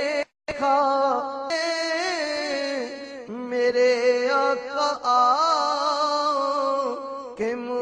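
An Urdu naat (devotional song) sung by a single voice in long, ornamented held notes, with a brief break just after the start.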